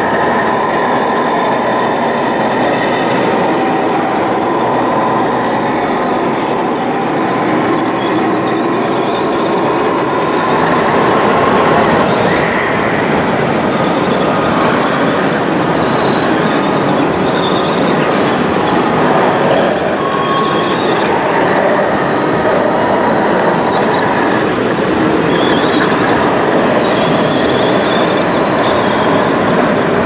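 Radio-controlled Komatsu D65PX model bulldozer crawling through loose soil: a steady, loud clatter and squeal of its metal tracks and drive.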